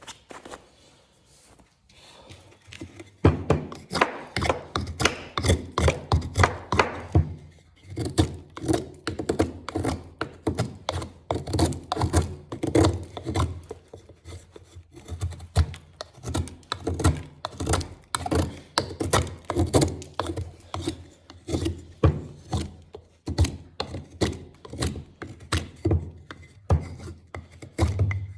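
A flat-ground 1075 steel knife whittling wood: many quick, short carving strokes in rapid succession, starting about three seconds in.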